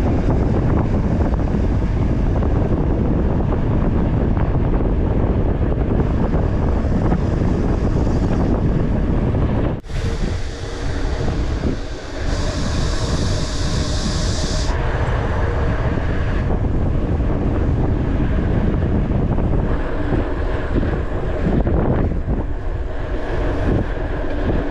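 Steady wind noise buffeting the microphone of a mountain-bike rider moving at speed, over a low rumble. The noise dips briefly about ten seconds in, and a higher hiss comes in for a couple of seconds soon after.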